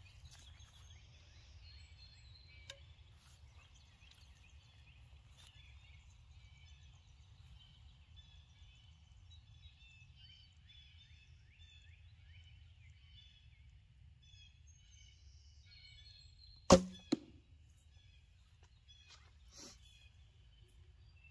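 A single longbow shot about three-quarters of the way through: the sharp snap of the released string, then a fainter knock a moment later as the wood arrow strikes the target. Faint birdsong over a low steady rumble fills the rest.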